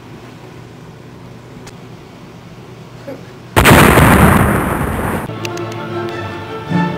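Low hum, then about three and a half seconds in a sudden loud explosion-like blast that dies away over about a second and a half, followed by music with held notes.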